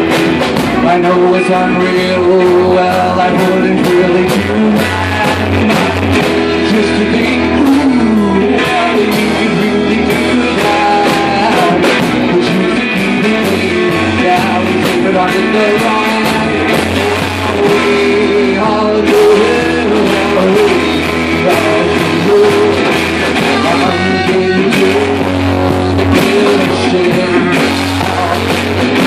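A live rock band playing loudly, with electric guitar and drums.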